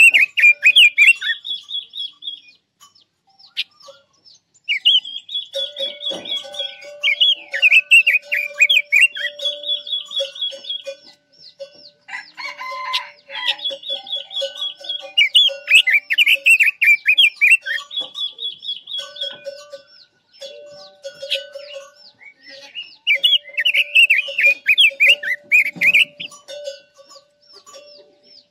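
Caged Quế Lâm songbird singing in repeated phrases of fast, loud warbling notes, each followed by a high rapid trill, with short pauses between phrases. A rooster crows in the background.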